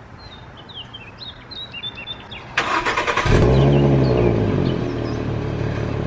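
Birds chirp, then about two and a half seconds in the starter cranks briefly and the 2011–2012 Ford Mustang's 3.7-litre V6 fires through its stock exhaust. The revs flare up and fall back, and the engine settles to a steady idle.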